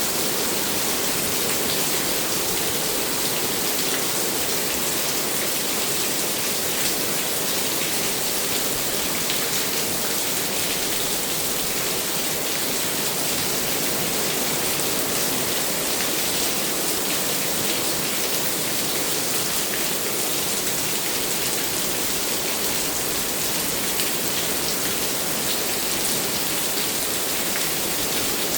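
Steady rainfall, drops pattering on surfaces in an even hiss.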